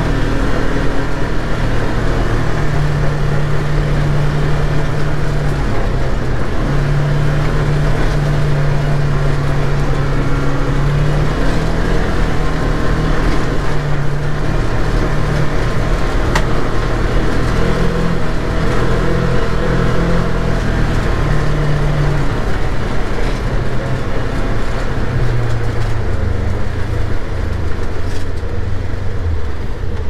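Vehicle engine and road noise heard from inside the cab while driving through deep snow, running steadily with the engine note shifting up and down and dropping lower near the end as the vehicle slows.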